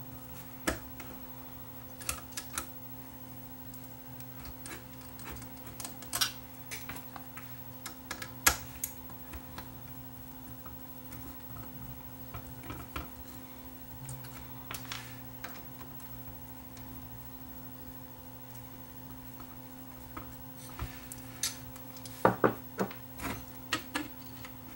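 Scattered small clicks and taps of metal and plastic parts being handled as a cassette deck mechanism is taken apart by hand and its screws are removed, with a quicker, louder cluster of clicks near the end. A steady faint hum runs underneath.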